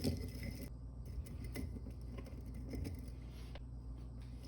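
Light scattered clinks and rustles of copper wire scraps being packed into a ceramic crucible, over a low steady hum.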